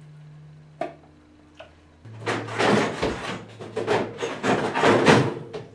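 A couple of faint clicks, then from about two seconds in a dense run of knocks, rubbing and rattling of things being moved about as a plastic ice cream container of mashed potato is put away into the freezer.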